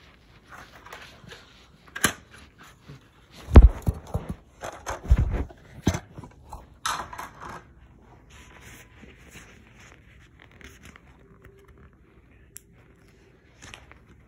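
Handling noises from unboxing a toy playset: irregular scraping, crackling and clicking of packaging and plastic parts. Several heavy knocks come about three and a half to five and a half seconds in.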